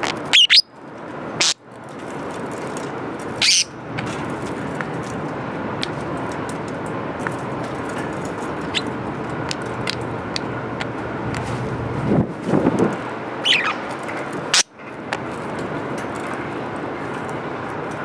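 Budgerigar giving a few short chirps and squeaks: two near the start, one about three and a half seconds in, and a falling chirp around thirteen seconds in. Under them runs a steady background noise, broken by a few sharp clicks.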